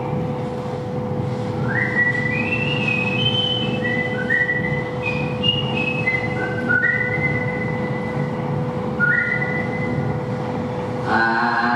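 A slow melody whistled in long held notes, starting about two seconds in and stepping up and down, over a steady hum and a low rumble.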